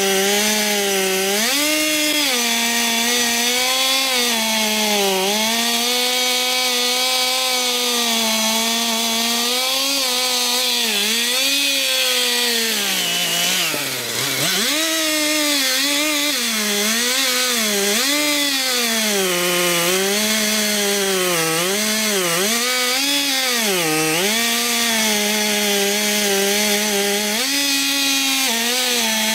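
Chainsaw running and cutting into wood, its engine pitch wavering as the chain bites and eases. About halfway through, the engine bogs down deeply under load for a moment, then picks back up.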